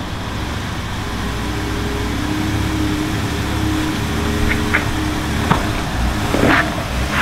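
Off-road vehicle's engine pulling steadily under light throttle while crawling up a rock obstacle, growing a little louder from about a second in, with a few sharp clicks and knocks of tyres and underbody on rock in the second half.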